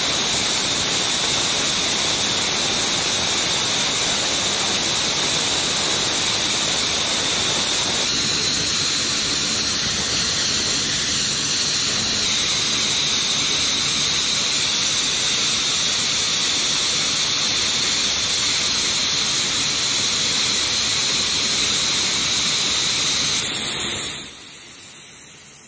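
F-15C Eagle's Pratt & Whitney F100 turbofan engines running during a hot refuel: a loud, steady rushing hiss with a high whine. It fades away near the end.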